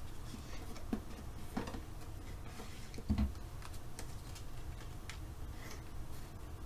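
Cardstock pieces handled and pressed together on a craft table: scattered light taps and paper rustles, with one louder soft thump about three seconds in.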